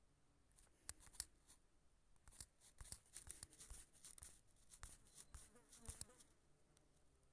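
Near silence with faint scattered clicks and rustles, thickest from about two to six seconds in.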